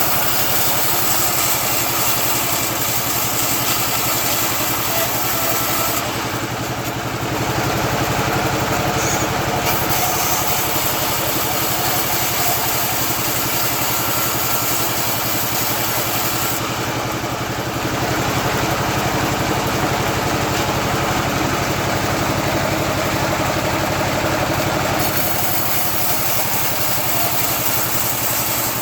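Bandsaw sawmill running steadily while sawing eucalyptus. A steady machine tone sits under a dense hiss; the hiss thins out twice, for a few seconds about a fifth of the way in and again for several seconds past the middle.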